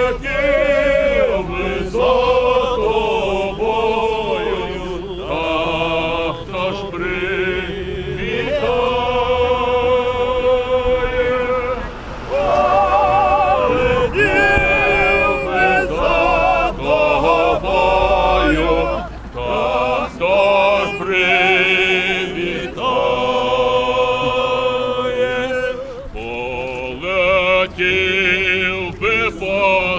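A group of people singing together outdoors, long held notes with a wavering pitch and short breaks between phrases.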